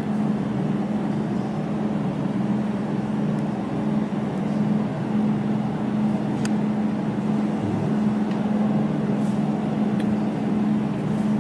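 Jewelry laser welding machine running with a steady low hum, with several sharp ticks at irregular intervals: single laser pulses spot-welding a gold earring wire.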